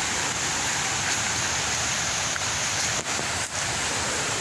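Steady rush of a river's water, heard from close by along the trail, with two brief dips about three seconds in.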